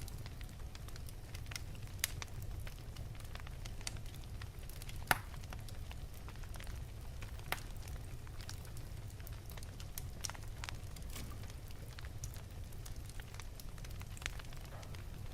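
Wood fire burning in an open fireplace: a steady low rumble of the flames with scattered sharp crackles and pops, the loudest pop about five seconds in.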